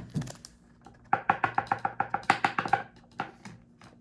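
A rapid, even run of light taps with a hollow, wood-block-like ring, about ten a second for about two seconds starting a second in, followed by a few single taps.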